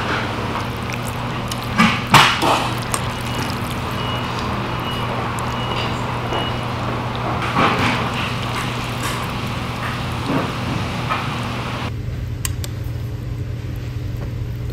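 Steady low hum of shop background with scattered light clicks and scrapes of metal chopsticks against a stainless-steel noodle bowl as the noodles are mixed and lifted. A row of faint short high beeps sounds partway through, and the background drops suddenly near the end.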